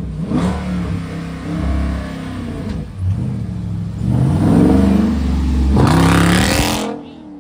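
Car engine revving repeatedly, the pitch rising and falling with each rev; the longest, loudest revs come in the second half, and the sound drops away sharply near the end.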